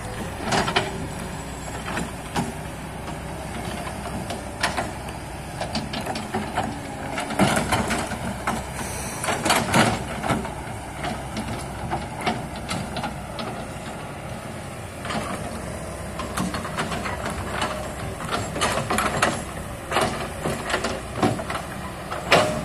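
Excavator's diesel engine running steadily, with repeated short knocks and scrapes as it works the ground.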